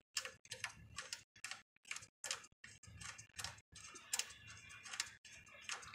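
Faint, irregular clicking and ticking of a small screwdriver working the tiny set screw on a battery switch's knob as it is tightened, a few clicks a second.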